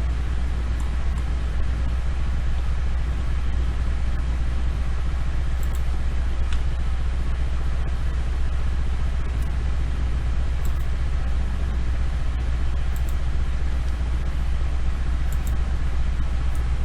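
Steady low hum and hiss of background noise, with a few faint scattered clicks of a computer mouse.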